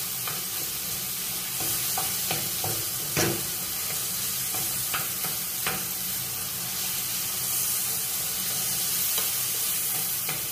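Tomatoes frying in hot oil in a pan, sizzling steadily, while a utensil stirs and mashes them, tapping and scraping against the pan in a dozen or so scattered clicks. The tomatoes are being crushed to release their juice as the sauce base.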